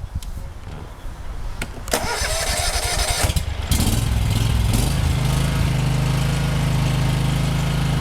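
The Kawasaki 17-horsepower engine of a Yazoo/Kees Mini Max zero-turn mower is cranked about two seconds in and catches after a second or so. It settles into a steady run.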